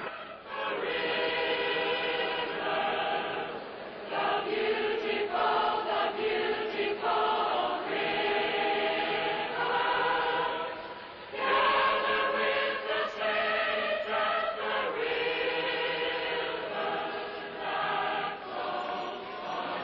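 Many voices singing a slow hymn together in held notes, phrase by phrase, with a brief break about eleven seconds in.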